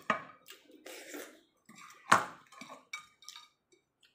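A ceramic rice bowl being handled while eating by hand: light scrapes and clinks against the bowl, with one sharp knock about two seconds in and a few lighter taps after it.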